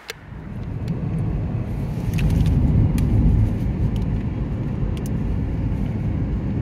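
Road noise inside a moving car: a steady low rumble of tyres and engine that fades in over the first second, with a few short clicks.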